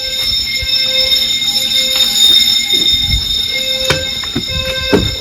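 Wheelock fire alarm bell ringing continuously and loud, a steady high metallic ring. In the second half come low thumps and two sharp knocks.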